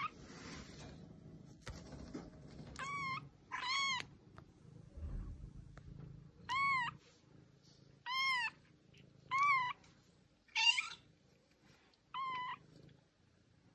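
Young kitten mewing: about seven short, high-pitched mews, each rising and then falling in pitch, spaced one to three seconds apart. The one near the end is rougher than the rest.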